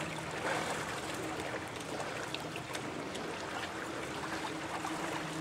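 Shallow pond water splashing and trickling softly around a canoe, a steady wash with a few faint scattered knocks.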